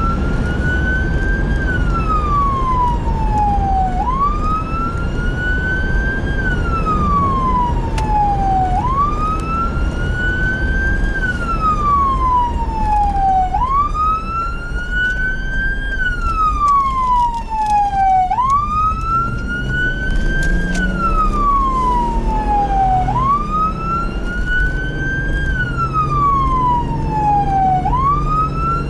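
Fire apparatus siren sounding a wail: each cycle rises quickly and falls more slowly, about every four and a half seconds, with engine and road rumble underneath.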